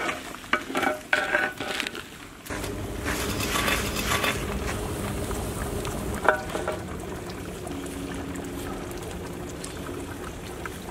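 A large pot of fish curry boiling over a wood fire, a steady bubbling rush that starts abruptly about two and a half seconds in. A single metal clink of the ladle against the pot comes about six seconds in.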